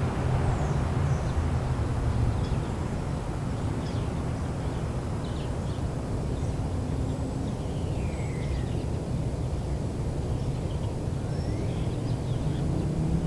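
Motorcycle engine running out of sight, its low rumble easing off through the middle and growing again near the end, with a few bird chirps over it.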